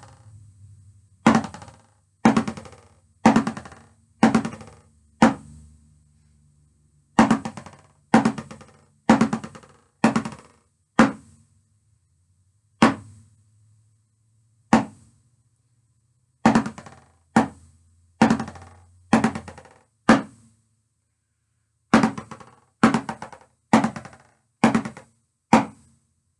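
Drumsticks on a rubber practice pad playing multiple bounce (buzz) strokes, each a short buzz lasting about half a second, mixed with a few single taps. The strokes come at roughly one a second, with a few short rests.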